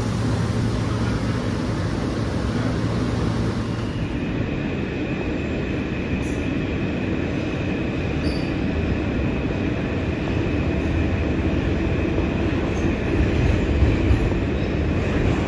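R160 subway car in motion, heard from inside: a steady rumble of wheels on rail. About four seconds in a thin, steady high whine sets in and holds. The rumble grows louder near the end.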